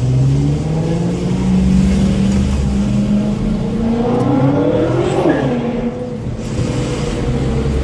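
BMW M6 with an Akrapovic exhaust accelerating hard. The engine note climbs in pitch for about five seconds, rises steeply, then drops about six seconds in and carries on at a steady lower pitch.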